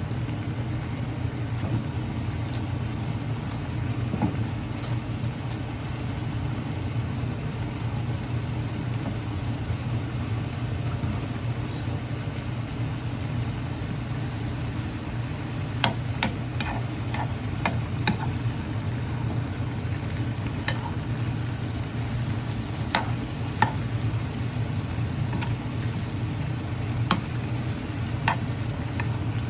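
Cooking in a pan with a steady low hum, and sharp irregular clicks of utensils from about halfway on.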